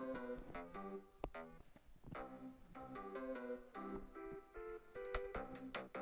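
Samsung Galaxy phone ringtone: an electronic melody of short synthesized notes, with a louder electronic drum beat coming in near the end.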